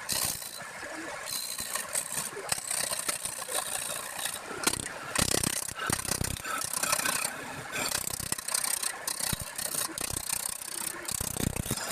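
Woodturning lathe running while a tool cuts the spinning wood: an uneven scraping hiss with frequent short knocks.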